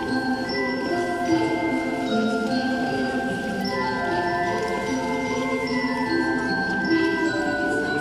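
Instrumental music for a children's gymnastics routine, with mallet percussion playing over sustained notes that change every second or so.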